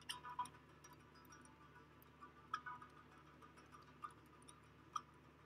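Near silence: room tone with a steady low hum and a few faint, short clicks, the clearest near the start, at about two and a half seconds, at four seconds and at five seconds.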